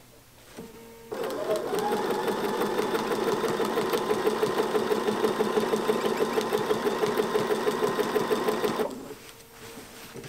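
Bernina 7-series sewing machine with a walking foot stitching through a wool-batted quilt at a fast, even rate, starting about a second in and stopping near the end, with a light squeak from the walking foot.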